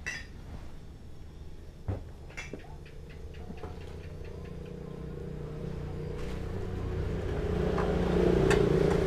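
Clicks and a knock as an electric rice cooker's lid is unlatched and swung open, then a motor vehicle's engine growing steadily louder as it approaches, loudest near the end.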